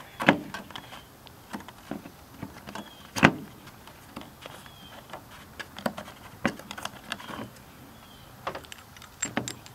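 Scattered clicks and knocks as the coolant reservoir cap of a 1997 Chevy Malibu is unscrewed and handled, the loudest a sharp knock about three seconds in.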